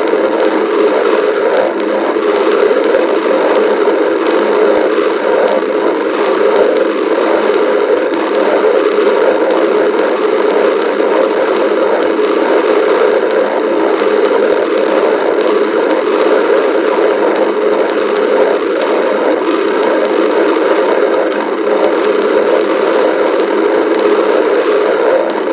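Stomach sounds picked up close to the belly: a loud, steady crackling rush with no separate growls standing out.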